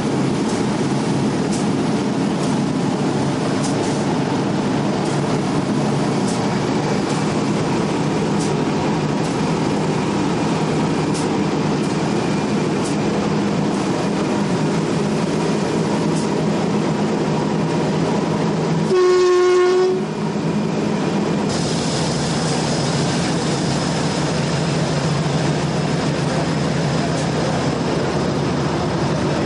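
Diesel freight locomotive heard from inside its cab: steady engine and running noise with wheels clicking over the rail joints. About two-thirds of the way through, the horn sounds one blast of about a second, and shortly after a steady hiss joins in.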